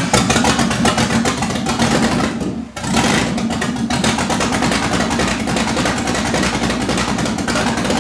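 LS1 5.7-litre aluminium-block V8 with a FAST LSXR 102 mm intake and throttle body running loud on a test start, its firing coming through as rapid even pulses. The sound dips briefly about two and a half seconds in, then picks back up.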